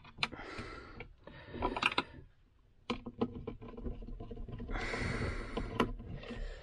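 Small handling clicks and taps of a screwdriver and plastic parts as the cable clamp is fitted on an extractor fan's wiring box, with a longer hissing rustle about five seconds in.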